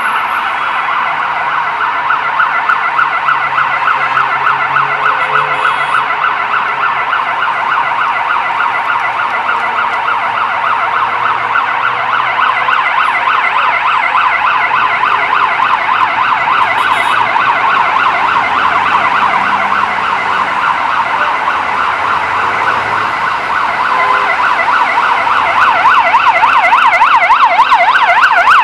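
Emergency vehicle sirens in fast yelp mode, the pitch sweeping quickly up and down several times a second. They grow louder over the last few seconds as a siren comes closer.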